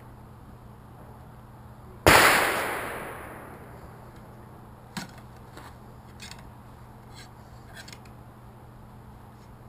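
A single loud gunshot about two seconds in, its report dying away over about two seconds, fired by another gun on the range. After it come a few faint clicks and taps as a ramrod pushes a sabot bullet down the barrel of a .50 cal muzzleloader.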